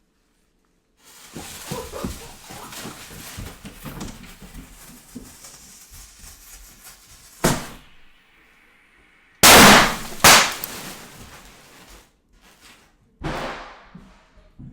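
A firework going off: after about a second it starts hissing and crackling for several seconds, then comes a sharp bang. A couple of seconds later there are two very loud blasts close together, and one more burst near the end.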